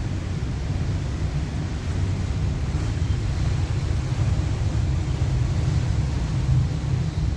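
Storm at sea: a steady low roar of wind buffeting the microphone over the wash of the sea.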